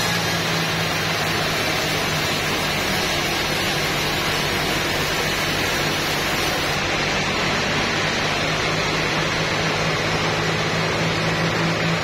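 Band sawmill machinery running steadily: a constant mechanical noise with a steady low hum.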